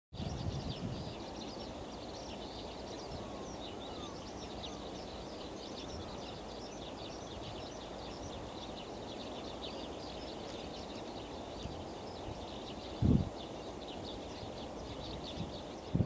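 A large flock of bramblings calling together: many short high calls overlapping without a break, over a steady low rumble of background noise. A single short low thump, the loudest sound, comes about three-quarters of the way through.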